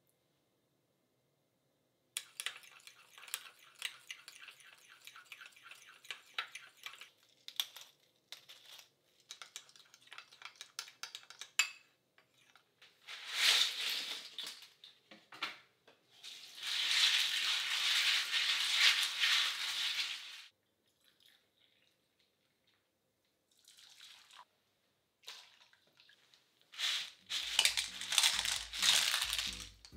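Small spoon clinks and scrapes against a ceramic bowl as a dressing is stirred. Then a kitchen tap runs into a mesh strainer, steadily for about four seconds. Near the end, clams in shell clatter in a metal strainer and splash into a steel bowl of water, as soft background music comes in.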